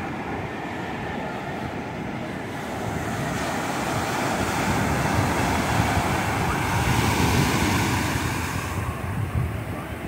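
Ocean surf breaking and washing in, a rushing noise that builds to its loudest about seven seconds in and eases near the end, with wind rumbling on the microphone.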